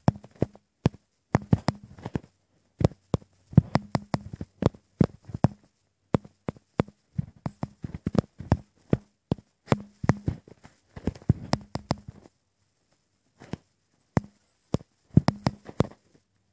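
Typing on a smartphone touchscreen keyboard: irregular runs of quick, sharp taps or key clicks with short pauses between words, and a longer pause of about a second and a half near the end.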